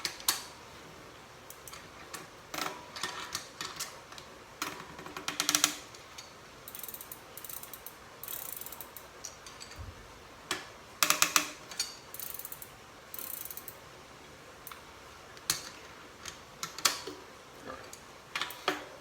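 Bursts of rapid ratcheting clicks as a bicycle cassette lockring is tightened with a lockring tool, the strokes coming in short runs with pauses between.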